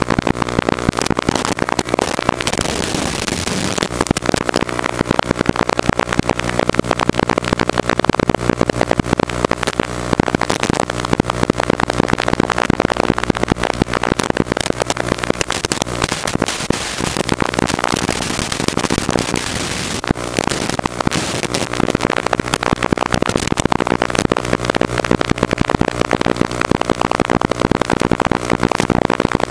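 Small FPV racing quadcopter in flight, heard through its own recorded feed: a steady motor buzz buried under loud, dense crackling static.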